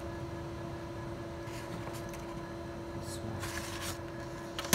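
Printed sheets of paper rustling briefly twice as they are handled and shuffled, over a steady low hum, with a sharp click at the very end.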